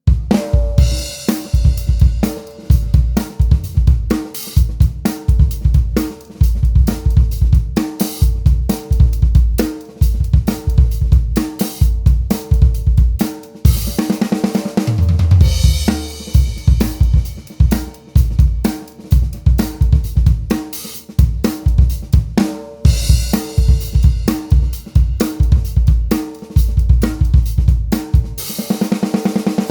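Full drum kit playing a steady groove built around a Joyful Noise Luminary 14x6.5 snare drum, with kick drum, hi-hat and UFIP cymbals. Cymbal crashes ring out about halfway through, again later, and near the end, with a deep drum hit in the middle; the playing stops just as it ends.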